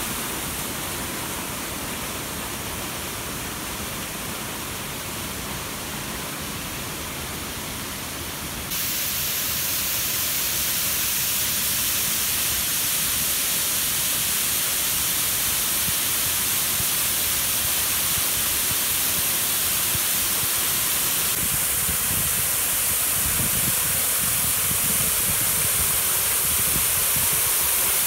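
Creek water rushing over rocks in a cascade. About nine seconds in it gives way to the louder, brighter, steady pour of a 40-foot waterfall plunging into its pool.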